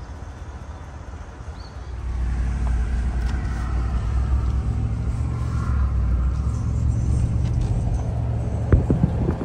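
Lifted 2022 Chevrolet Silverado 1500 Trail Boss on 42-inch Toyo mud-terrain tires driving on the road: a steady low engine and road rumble that gets louder about two seconds in as the truck picks up speed. A few clicks near the end.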